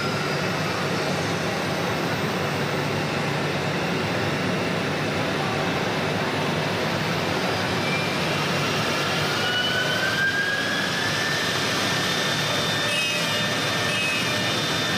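A CNC router's spindle motors whining over steady routing noise as the machine cuts a wooden door panel. The whine falls in pitch near the start and rises again from about eight to eleven seconds in, then holds steady.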